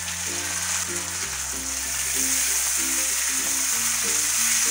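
Beef mince and freshly added chopped tomatoes sizzling in a hot wok while being stirred with a spatula. Background music with slow, held low notes plays under the sizzle.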